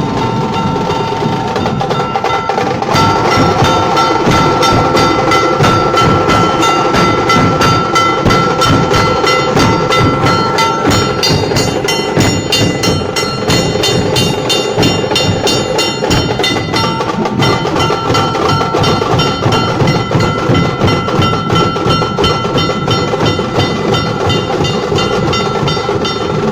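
Nashik dhol drumming: fast, even drum strokes with a steady ringing tone over them. The playing grows louder and denser about three seconds in.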